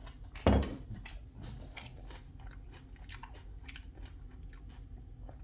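A bowl of corn flakes set down on a kitchen worktop with a single thump about half a second in, followed by a run of small crunching clicks.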